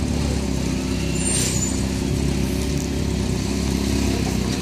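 A motor vehicle engine idling steadily, a low even hum.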